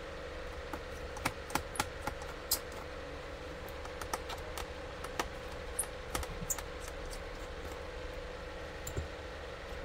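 Irregular small plastic clicks and taps from hands and a small screwdriver working on an Asus X554L laptop's display assembly, denser in the first half, over a steady faint hum.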